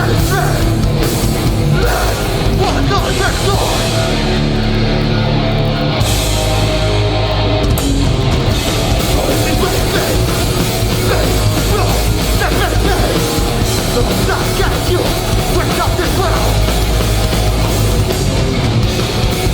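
A hardcore band playing live at full volume: distorted electric guitars, bass and drums in a dense, continuous wall of sound. The top end briefly thins out about four seconds in, then returns.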